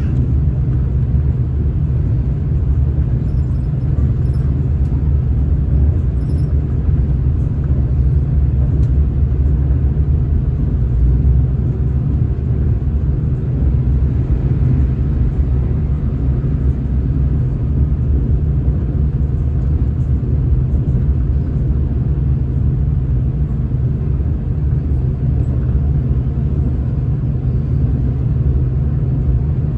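Steady low rumble of a V/Line passenger train running at speed, heard from inside the carriage.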